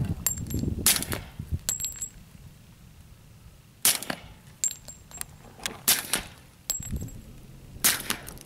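Suppressed .45 ACP pistol, a SIG Scorpion with an Osprey suppressor, fired four times in slow single shots, each a short muffled crack. Between the shots come lighter clicks and high metallic tinks.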